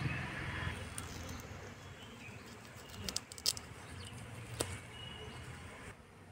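A handful of short, sharp clicks as a knife blade cuts through kohlrabi stems, over a low rumble, with a faint bird chirp near the end.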